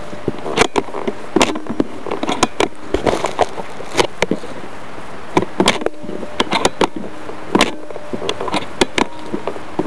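Paintball gun firing: sharp pops at irregular intervals, some in quick pairs, over a steady buzzing hum.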